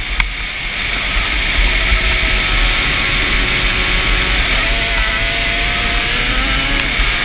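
Yamaha Banshee's 350 cc twin-cylinder two-stroke engine running hard at steady high speed, its pitch drifting slightly up and down. Wind buffets the helmet-mounted microphone throughout.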